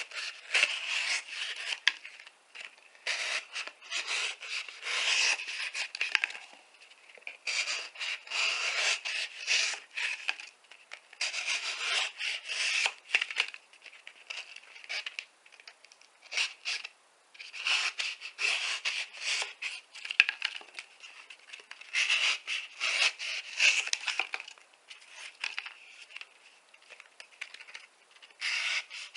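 Folding knife blade cutting and shaving material in repeated strokes, each a second or two long with short pauses between, as fire-starting material is cut.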